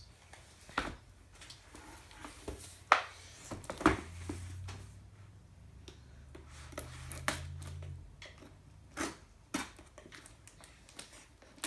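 Packaging being handled during an unboxing: scattered sharp taps and knocks, the loudest about three and four seconds in, with a low hum for a few seconds in the middle.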